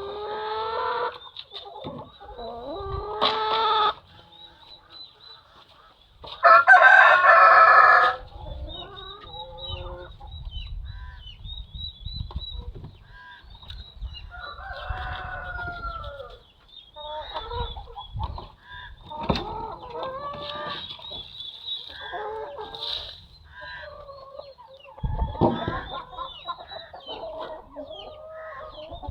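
Domestic chickens clucking, with a rooster crowing loudly once about a quarter of the way in, and a few sharp knocks.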